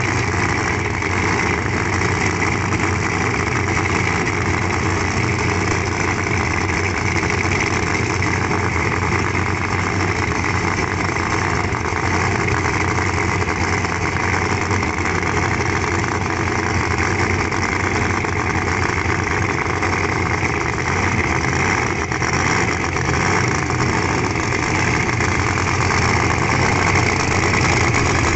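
Competition drag car's engine idling loudly and steadily.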